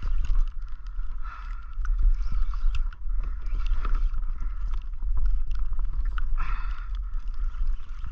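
Wind rumbling on the action-camera microphone and water slapping against a plastic kayak hull, with the whirr and clicks of a spinning reel being cranked in against a hooked fish, a greater amberjack (kahala).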